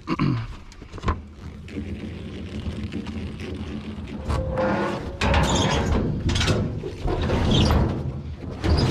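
A motor vehicle's engine running with a steady low rumble, getting louder about five seconds in.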